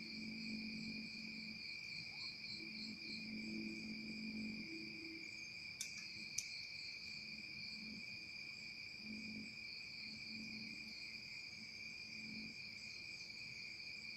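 Insects chirring steadily at a high pitch, with two sharp clicks about six seconds in, half a second apart.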